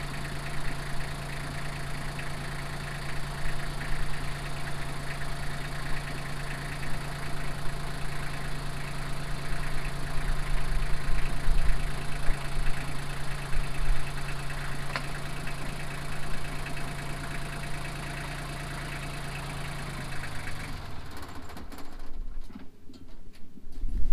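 Small tractor engine running steadily at a constant speed, then shut off about twenty seconds in.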